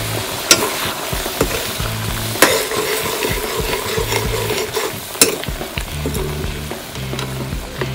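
Pork curry bubbling and sizzling in a black iron kadai while a metal ladle stirs it, with three sharp knocks of the ladle against the pan.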